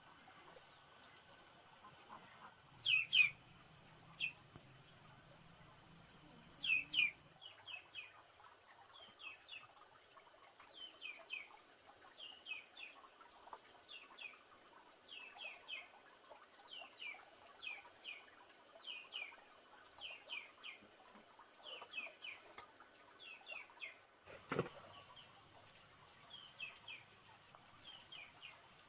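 Small birds chirping, a long run of short falling chirps, two of them louder early on. A steady high insect drone runs under the first part and then stops, and a single sharp knock comes near the end.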